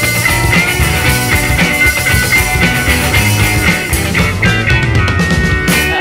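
Rock music soundtrack with electric guitar and a steady drum beat; near the end the drums drop away, leaving held notes.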